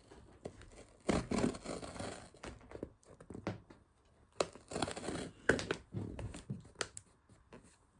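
A small blade scraping and cutting at packing tape on a cardboard box, in a series of rough scratching and tearing strokes, loudest about a second in and again about halfway through.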